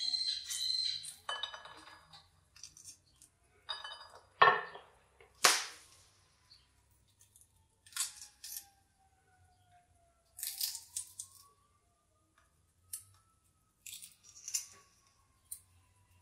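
Fresh English pea pods being twisted and split open by hand, giving crisp snaps and crackly tearing, with shelled peas dropping into a bowl with small clicks. Two sharp snaps about five seconds in are the loudest.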